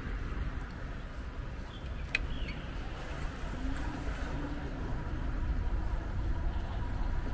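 City street ambience: a steady low rumble of traffic, with a single sharp click about two seconds in.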